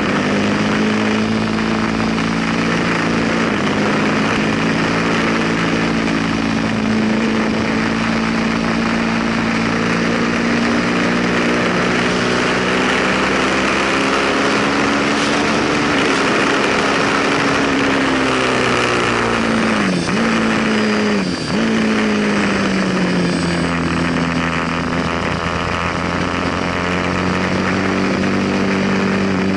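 Ducati sportbike's V-twin engine running hard at high revs with heavy wind rush, the engine pitch drifting up and down through acceleration and corners. About two-thirds of the way through, the pitch drops sharply twice with quick gear changes, then settles lower.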